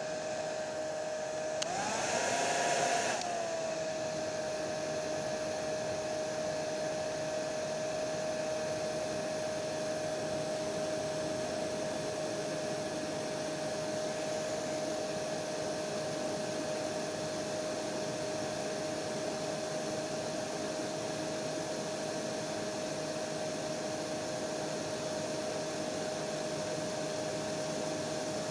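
Hair dryer blowing with a steady whine over a rushing hiss. About two seconds in, it briefly turns louder and higher for a second or so, then settles back to the same steady tone.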